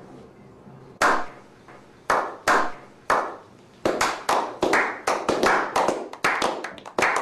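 Slow clap: single hand claps about a second apart with a short echo after each, speeding up from about four seconds in as more people join, into quicker overlapping clapping.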